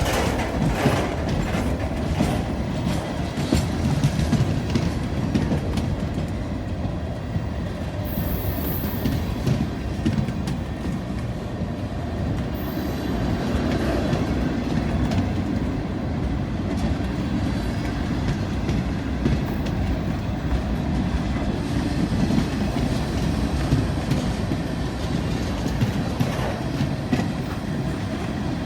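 Freight train rolling past at steady speed. The cars rumble and the wheels clack over the rail joints, with a couple of brief high squeaks about eight and twelve seconds in.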